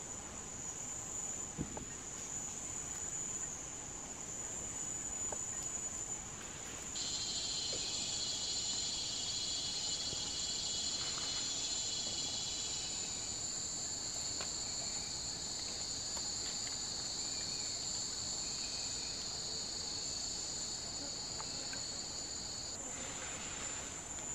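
Forest insects droning steadily at a high pitch. A second, lower and louder insect chorus starts suddenly about a third of the way in and cuts off shortly before the end.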